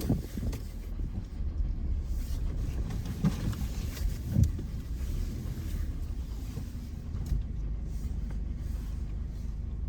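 2017 Hyundai Tucson running at low speed as it reverses and manoeuvres into a parking spot: a steady low rumble, with a couple of brief knocks about three and four and a half seconds in.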